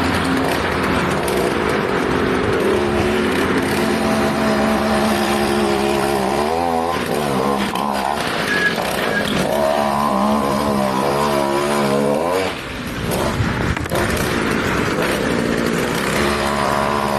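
Two-stroke chainsaw engine driving a homemade moped, running hard with its revs wavering up and down; about twelve seconds in it drops off briefly, then picks up again.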